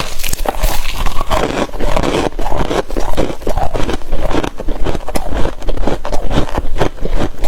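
Freezer frost being scraped and crunched close to the microphone: a dense, irregular run of crackles and scrapes.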